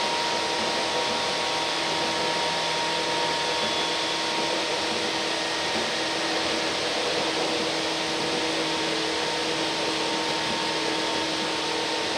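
Steady running noise inside a Tokyu 8500 series commuter train car at speed: a constant rush of wheels and air with a few steady humming tones riding over it.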